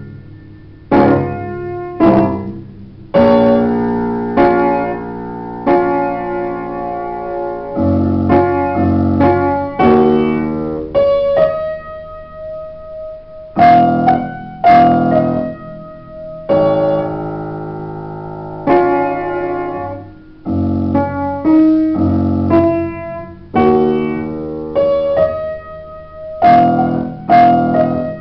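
Solo upright piano being played: chords struck every second or two, each ringing and fading, with some notes held across them.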